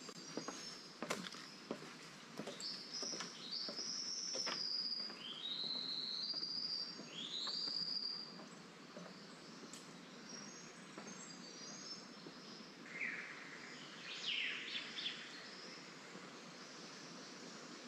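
Bird song: a run of loud whistled notes that each rise and then fall, followed after a pause by a few quick downward-sliding calls. A few short knocks near the start.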